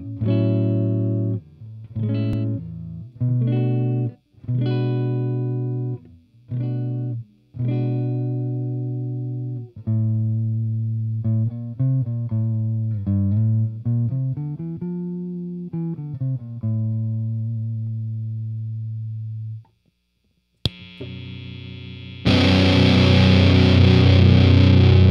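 Electric guitar played through a distortion pedal: a run of chords and notes, each cut short before the next, with a note bent up and back down about fifteen seconds in. After a short break and a click, loud, heavily distorted chords come in about twenty-two seconds in.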